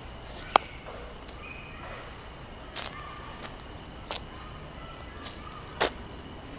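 A powder-filled nylon stocking thrown onto asphalt and sneakers stepping on the pavement: several sharp taps and knocks, the loudest about half a second in, over a steady outdoor hiss.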